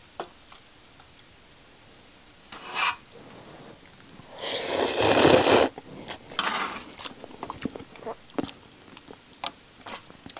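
Someone eating hot noodles from a titanium pot with a spork. There are light clicks and scrapes of the spork against the pot, and a loud, rough rushing mouth noise over the pot that lasts about a second near the middle. After it comes a run of small clicks and chewing sounds.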